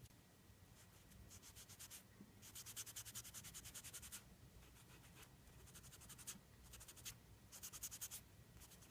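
A cloth damp with nail polish remover rubbed lightly over the lettering on a Glock 19's slide in quick back-and-forth strokes, faint, in four bouts of a second or two each with short pauses between. The wiping takes the excess polish off around the filled-in letters.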